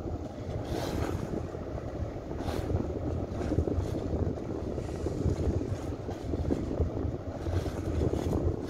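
Small boat under way: a low, steady engine rumble with water rushing past the hull, and wind buffeting the microphone in gusts.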